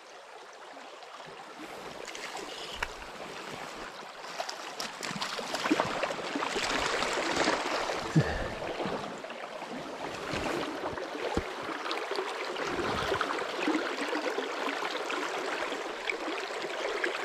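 A small river running over shallow rocks: a steady rush of flowing water that grows louder over the first few seconds.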